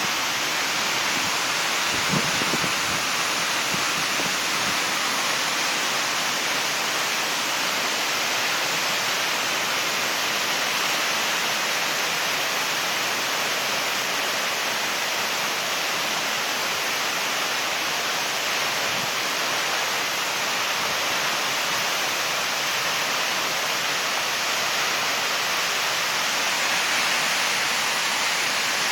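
Waterfall: a steady roar of falling water.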